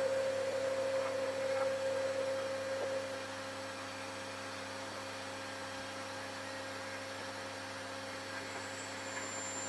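Handheld electric heat gun running steadily, its blower giving an even hum and rush of air. A higher tone in the hum fades about three seconds in, and the level then holds steady.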